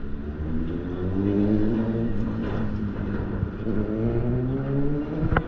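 A road vehicle's engine pulling away on a city street, its pitch rising twice as it speeds up, then holding steady, over general traffic noise. A sharp knock near the end.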